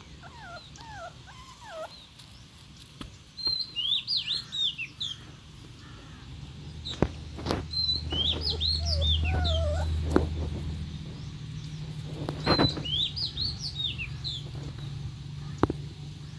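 Small birds chirping: clusters of quick high chirps every few seconds, with some lower chirps among them. A low steady hum comes in about six seconds in and lasts to the end, and a few sharp clicks fall through the second half.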